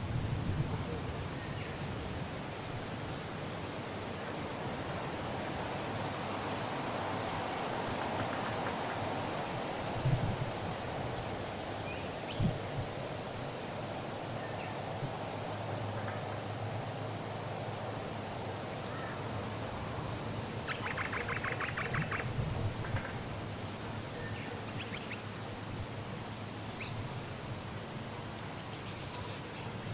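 Outdoor ambience dominated by a steady high-pitched insect drone, with a short rapid ticking trill about two-thirds of the way through and a few brief low knocks.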